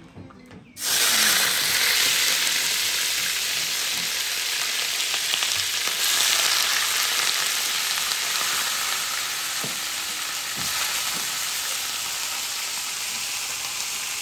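Pieces of venison sizzling in hot oil as they brown. The frying starts suddenly a little under a second in and carries on as a steady, loud sizzle.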